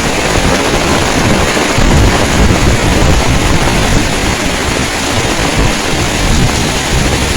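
Heavy rain pouring down in a dense, steady hiss, with strong wind buffeting the microphone in uneven low rumbles.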